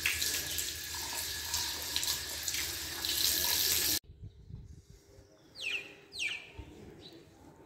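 Water running from a wall tap and splashing over bare feet into a tiled drain trough. It cuts off suddenly about four seconds in, leaving quiet open-air ambience with two short, falling chirps.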